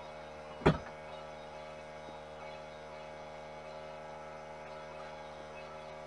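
Steady electrical hum with one short, sharp knock about a second in.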